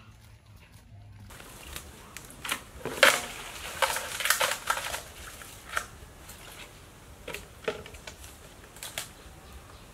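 Plastic bowls and a plastic basket being handled and set down on a table: an irregular run of knocks, clatters and rustles, the loudest about three seconds in.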